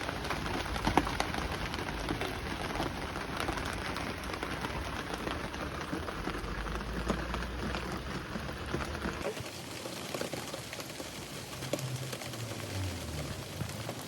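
Rain falling, a steady patter of many fine drops, with a low rumble underneath that drops out about nine seconds in.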